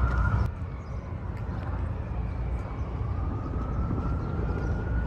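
Low outdoor rumble of city traffic and wind, with a distant siren wailing, its pitch slowly rising and then falling near the end.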